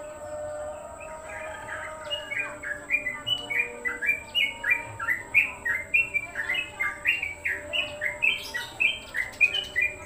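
Caged songbirds chirping in short, quick repeated notes. The notes come thicker from about two seconds in and keep a steady run of two or three a second.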